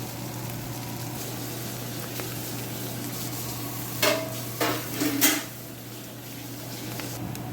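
Egg noodles sizzling steadily as they fry in a pan over medium heat, crisping on the bottom. A few louder clatters of a utensil against the pan come about four to five seconds in.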